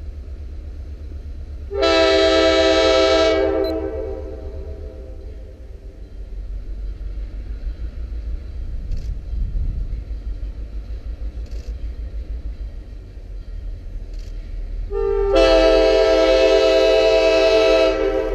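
Baldwin RS12 diesel locomotive's air horn sounding two chords for a grade crossing: a shorter blast about two seconds in and a longer one near the end. A low steady rumble lies underneath.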